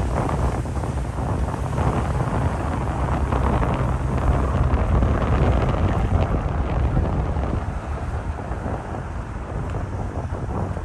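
Wind buffeting the microphone over the low rumble of a moving vehicle, steady throughout.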